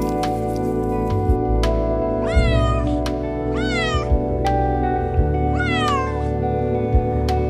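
A cat meowing three times, each meow a short high call that rises and then falls, over soft background music.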